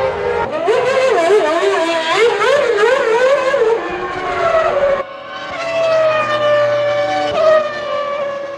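Formula One car 3-litre V10 engines at racing revs. The pitch rises and falls quickly for the first four seconds or so. After a sudden cut about five seconds in comes a steady high-revving note that slowly falls in pitch.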